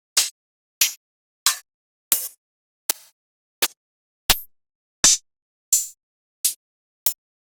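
A run of short, sudden sound effects, about eleven of them spaced roughly 0.7 seconds apart. Each is a quick pop or click, some with a brief hissy tail, with silence between them.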